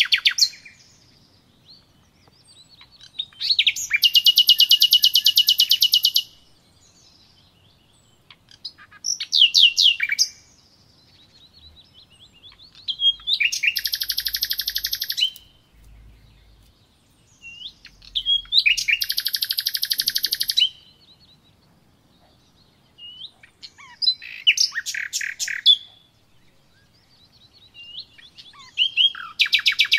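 A songbird singing in about six bursts of fast high trills and chirps, each one to three seconds long, a few seconds apart.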